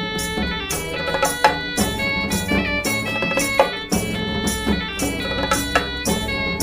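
Instrumental interlude of a Bengali Puja song: plucked strings over drums keeping a steady beat, with no singing.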